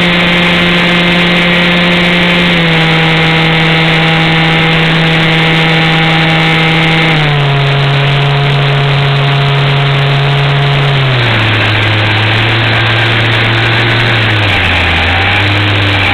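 Model aircraft's motor heard from an onboard camera: a steady drone over rushing noise that drops in pitch in several distinct steps as the throttle is eased back, then wavers up and down near the end.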